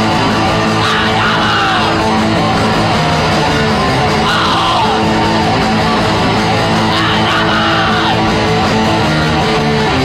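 Death metal band playing loud and live: electric guitars, bass guitar and drums, with harsh yelled vocals coming in three times.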